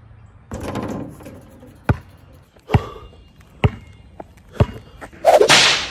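A basketball bouncing on concrete: four sharp bounces a little under a second apart, after a short rustling noise, then a loud rushing burst near the end.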